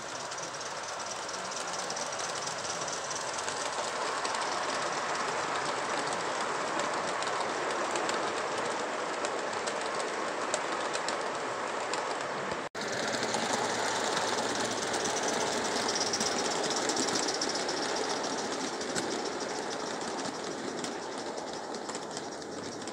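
Gauge 1 model train rolling along garden track: a steady rumble of metal wheels on rail with a light clicking as the long rake of Wagons-Lits coaches runs past. The sound cuts out for an instant about halfway through.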